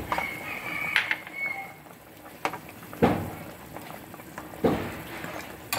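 A metal ladle stirs soup in a stainless steel pot, knocking against the pot about five times over the bubbling of the simmering soup.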